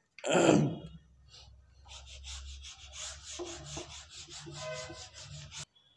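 Whiteboard duster rubbing the marker writing off a whiteboard in quick back-and-forth strokes, which stop abruptly near the end. A louder brief rustle in the first second, as the person moves past close to the microphone.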